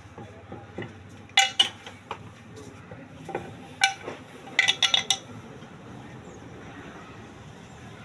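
Sharp metal clinks of tools or parts being handled: two close together about a second and a half in, single knocks around two and three to four seconds, then a quick run of about five clinks near five seconds.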